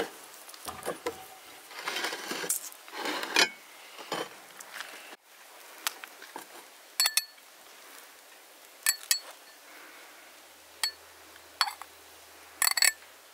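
Metal spoon scooping cooked rice pilaf, scuffing through the rice, then a series of sharp metallic clinks as it knocks against the pot and a glass serving bowl.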